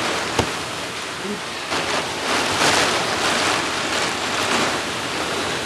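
Storm wind gusting through trees, a rushing noise that swells about two seconds in and eases toward the end, with one sharp click near the start.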